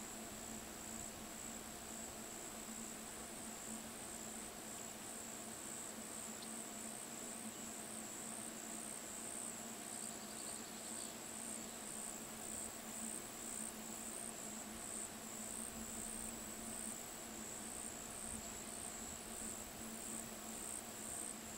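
Insects trilling steadily in a continuous, high-pitched chorus, with a faint low steady hum underneath.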